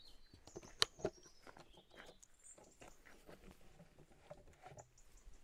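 Faint handling clicks and knocks on a wooden box camera, with one sharp click about a second in. Faint high bird chirps come and go behind it.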